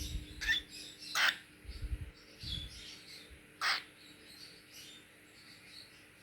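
Young cockatiels giving three short, sharp squawk-like calls, the loudest about a second in.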